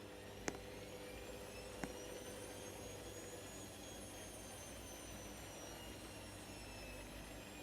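Beko washing machine running, with a faint motor whine that slowly rises and falls in pitch as the drum changes speed. Two small clicks come about half a second and about two seconds in.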